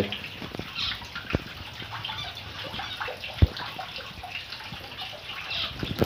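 Steady splashing of water running into a garden fish pond, with small cage birds chirping. Two sharp knocks come about a second in and near the middle, the second the loudest sound.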